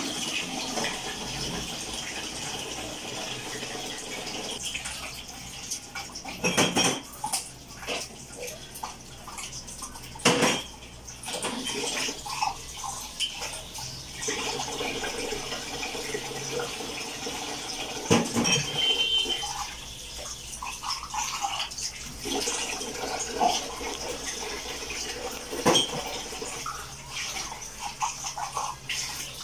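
Kitchen tap running steadily into a stainless steel sink while glasses are scrubbed and rinsed by hand. Dishware clinks against the sink now and then, with a few louder knocks.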